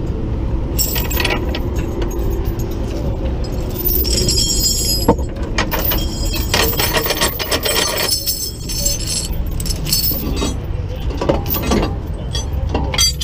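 Steel tow chain clinking and rattling as it is dragged out from under a car and handled, over a steady low rumble.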